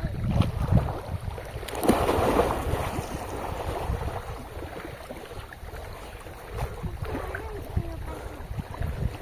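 Wind buffeting the microphone over moving, splashing water, loudest about two seconds in.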